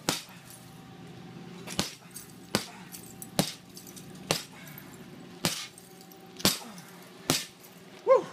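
Hammer blows on a shattered pane of impact-rated laminated glass: about eight sharp strikes, roughly a second apart. The glass is cracked all over but holds together in its frame.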